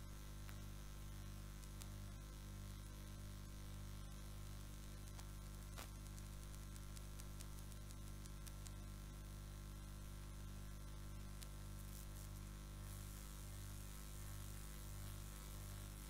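Faint steady electrical mains hum with a low buzz and even hiss, broken by a few faint clicks.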